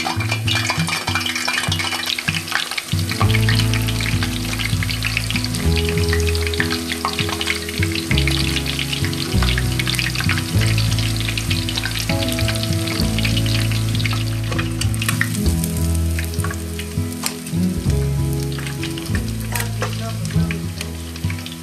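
Panko-breaded whitefish deep-frying in hot oil in a stainless steel pot: a steady, dense crackling sizzle, with the pieces turned in the oil with metal tongs. Background music with a low bass line plays underneath.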